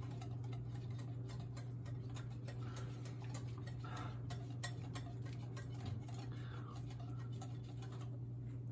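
Whisk stirring a thick peanut-butter and powdered-sugar sauce in a bowl, a run of light irregular ticks and clicks as it knocks the bowl, over a steady low hum.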